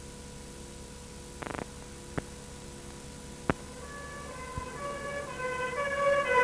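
A steady hum with a short buzz and two clicks, then about four seconds in a two-tone siren fades in, switching back and forth between a high and a low note and growing louder.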